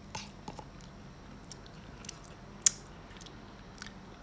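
Someone chewing food close to the microphone: scattered soft mouth clicks, with one sharper click about two and a half seconds in.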